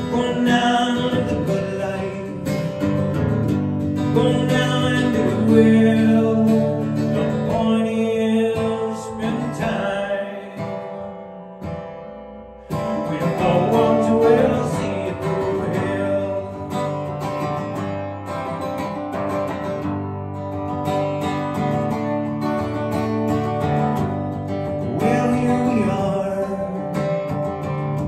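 Martin DSS-17 acoustic guitar strummed, plugged through effects pedals into a PA system. About ten seconds in the sound dies away, then the strumming comes back suddenly and loud just after twelve seconds.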